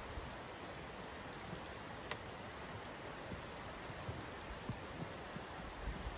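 A wide creek flowing, a steady rush of water. Near the end, soft footsteps in snow.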